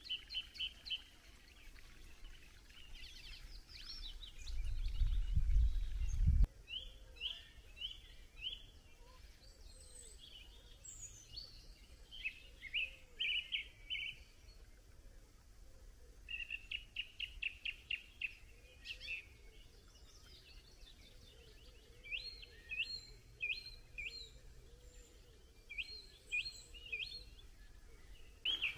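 Songbirds singing, with repeated short phrases of quick high chirps and trills. About four seconds in, a low rumble lasts roughly two seconds and cuts off suddenly.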